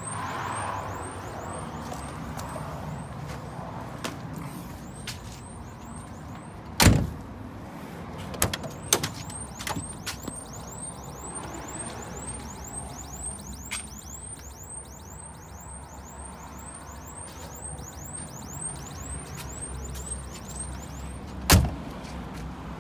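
Scania G 82M fire engine's 8.5-litre diesel idling steadily, with a loud knock about a third of the way in and a cab door slamming shut near the end. A high chirp repeats about two to three times a second throughout.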